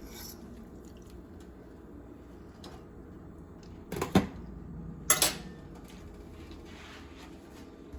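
Two short clatters of kitchenware being handled, about a second apart, over a faint steady background hum.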